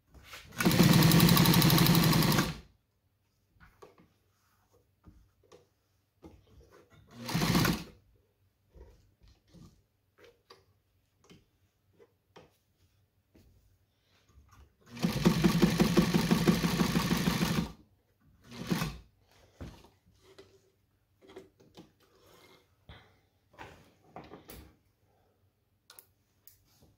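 Vintage New Home SKY electric sewing machine stitching through thick leather: two runs of about two and a half seconds each at a fast, even stitch rate, a shorter burst between them and another just after the second, with small handling clicks in the pauses.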